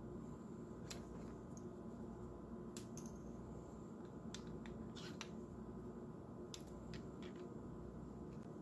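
Scattered light clicks and small handling noises as a small pocket flashlight and its packaging are handled, over a steady low room hum.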